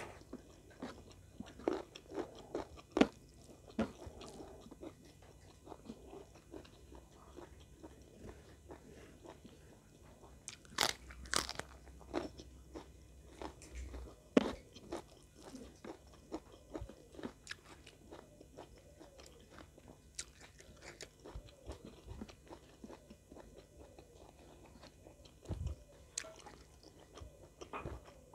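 Close-miked chewing and crunching of food eaten by hand (rice and fried chicken in sweet soy sauce), with many irregular small crunches and mouth clicks. A few louder crunches stand out, about 3 seconds in, around 11 seconds and near 14 seconds.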